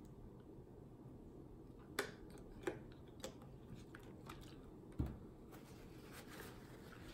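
Thin plastic water bottle crackling and clicking as it is handled and its cap screwed on, then a single dull thump about five seconds in as it is set down on the table. A faint paper rustle follows near the end.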